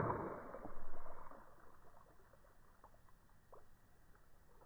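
Water from a burst water balloon gushing out of a hand and splashing into a shallow puddle, the splash fading after about two seconds into a few faint drips.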